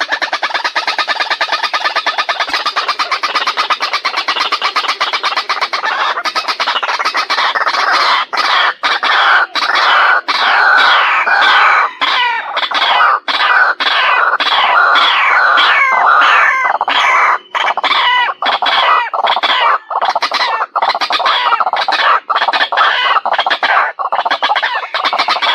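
White-breasted waterhen calling loudly: a fast, stuttering run of harsh notes, then harsh croaking notes repeated over and over, a few a second. It is a recording used as a lure call for catching waterhens.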